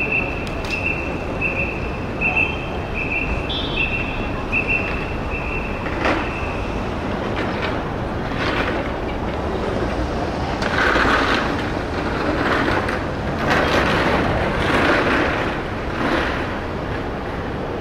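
Busy city street noise with a high electronic beep repeating a little faster than once a second, which stops about seven seconds in. A louder rushing, rumbling noise then swells in waves through the second half.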